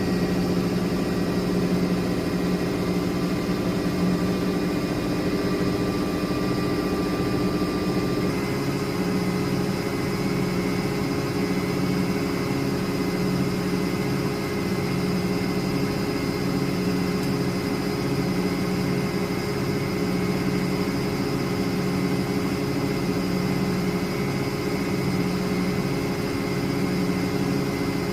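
Miele De Luxe W423 washing machine running with a steady motor hum and a slow, regular pulsing. About 8 seconds in, the hum changes as some of its tones drop away.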